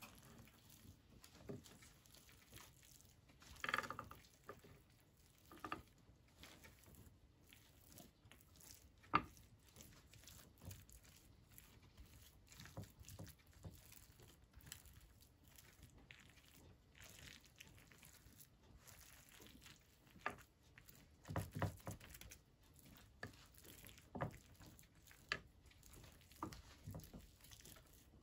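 Quiet, scattered food-preparation handling sounds: soft pats, squishes and taps, with a sharper click about nine seconds in and a cluster of duller thumps a little past twenty seconds.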